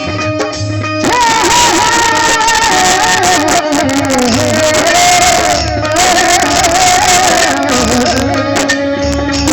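Music: a solo voice sings long, wavering, ornamented held notes over instrumental backing with a low drum beat. The voice comes in about a second in.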